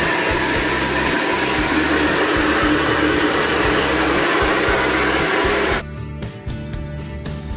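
Steady rushing of a high-pressure gas wok burner on full flame, with the wok's contents bubbling. The noise cuts off suddenly about six seconds in, leaving background music.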